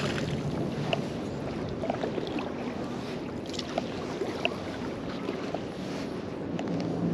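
Steady wash of shallow water with wind on the microphone, and a few faint ticks.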